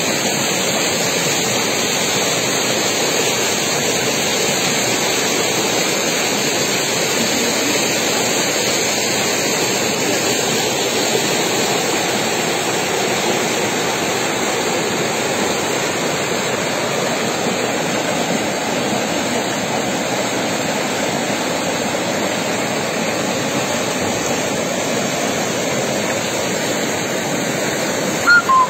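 Muddy storm floodwater rushing down a street, a steady loud rushing of fast, turbulent water. A short two-tone beep sounds near the end.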